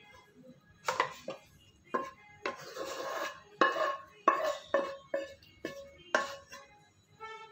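A metal spoon scrapes and knocks thick masala paste out of a stainless-steel mixer-grinder jar. There are about ten clinks and scrapes, each with a short metallic ring, and a longer scrape about three seconds in.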